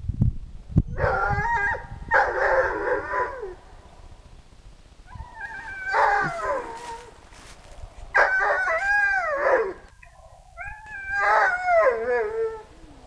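A dog howling and whining in four drawn-out bouts of cries that rise and fall in pitch.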